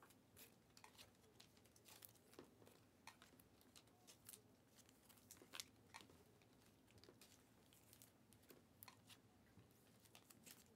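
Faint crinkling and scattered small clicks of foil trading-card packs and cards being handled and opened by hand.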